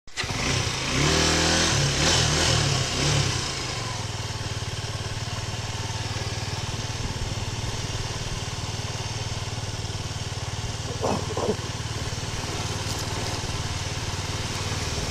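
Suzuki Gixxer 250's single-cylinder engine revving up under throttle for the first few seconds, then running steadily as the motorcycle rolls along slowly.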